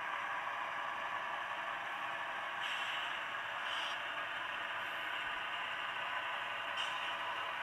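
HO scale model hopper cars rolling along the track, a steady rolling hiss with three faint clicks.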